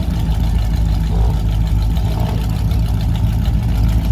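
Classic American cars' engines idling and pulling away at low speed, a steady low rumble with no change in pace.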